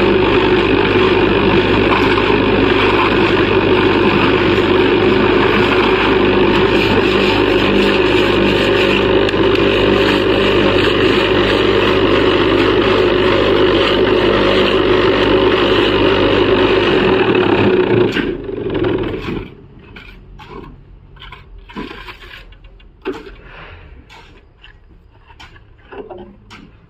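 Electric vibrating table for casting precast concrete, running with a loud steady mechanical hum that compacts the concrete in the mould. It cuts off about 18 seconds in, leaving only light scrapes and knocks.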